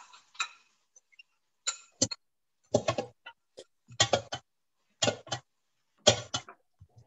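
Food processor pulsed in a series of short bursts about a second apart, chopping cooked corn kernels with butter into fresh polenta.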